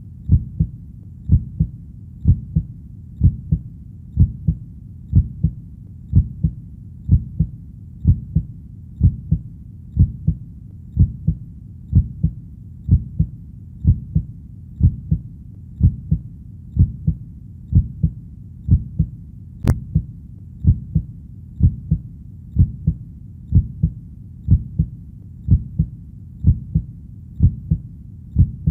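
Heartbeat, a steady lub-dub of paired low thumps at about one beat a second. One faint click occurs about two-thirds of the way through.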